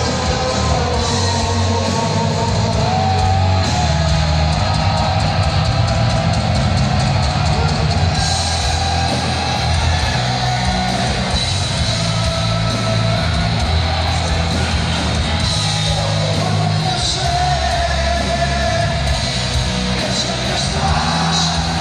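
Heavy metal band playing live at full volume: distorted electric guitars, bass and drums, with singing.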